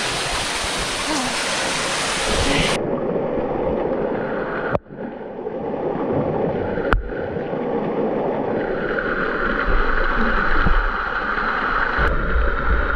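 Steady rush of a waterfall pouring into a waterhole. About three seconds in the sound suddenly turns duller, losing its hiss, with two brief clicks near five and seven seconds and a low rumble in the second half.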